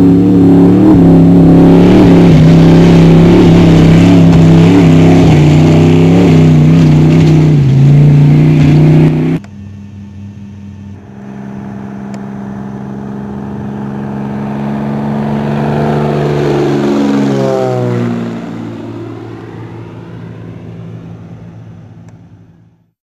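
Off-road race truck engine running hard at high revs, loud and steady, cutting off abruptly about nine seconds in. Then a light propeller plane's engine drone grows louder, drops in pitch as the plane passes, and fades away.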